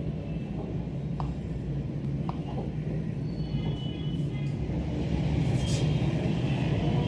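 Steady low background rumble, with faint high tones and a few faint ticks now and then.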